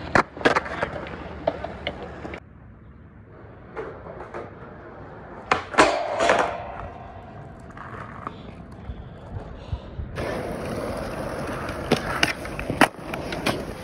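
Skateboard tricks in a string of short clips: sharp pops and board slaps on concrete, with wheels rolling between them. Near the middle the trucks grind along a small metal flat bar, and near the end come another pop and landing.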